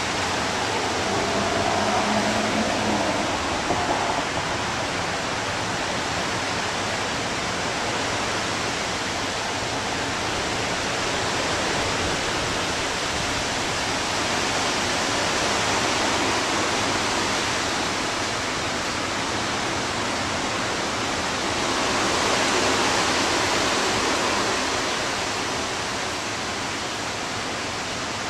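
Heavy rain and gusting wind of a severe thunderstorm, a steady hiss that swells several times, most strongly about three-quarters of the way through.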